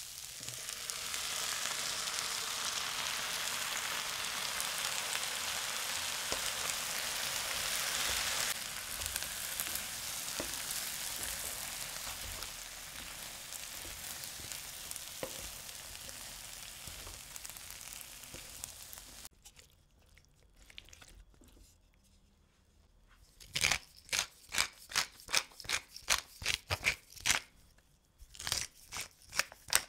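Food frying in oil in a hot pan, a steady sizzle that dies away about two-thirds of the way through. Near the end comes a quick run of sharp strokes, about three a second.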